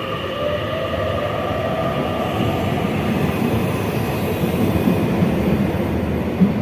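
Mexico City Metro train pulling away under electric traction: steady whining tones from the traction drive, the lowest climbing slightly, over a rumble of the running gear that grows as the train gathers speed.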